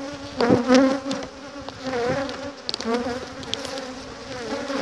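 Honeybees (Apis mellifera) buzzing around an opened hive: a steady hum from the colony with single bees flying close past, their pitch wavering up and down. A few light clicks break in.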